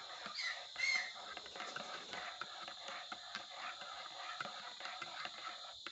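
A cat gives two short, high mews about half a second and a second in, followed by faint light clicks and taps.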